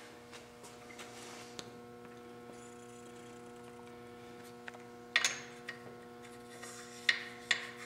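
Steady mains hum with a few small ticks, then three sharp clicks in the second half as metal valve lifters are set into their bores in a Porsche 356 engine's crankcase half.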